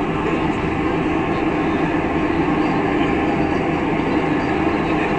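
Huge truck-mounted sound-system speaker stacks at a sound check, putting out a loud, steady, rumbling roar with no beat.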